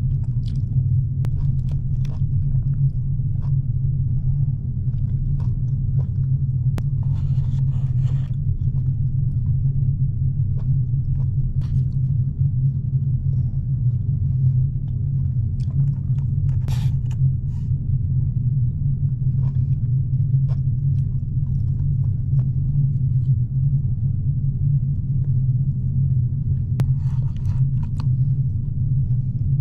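Steady low drone of the ferry Ishikari's engines and hull vibration under way, heard inside a cabin. Light clicks of chopsticks on a wooden bento box and a few short rustles sit on top of it.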